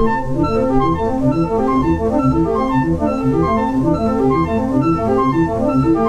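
Organ music: a quick repeating run of held notes, about four or five a second.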